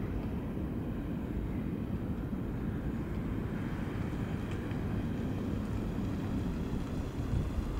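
A steady low rumble of outdoor noise with no distinct events, holding level throughout.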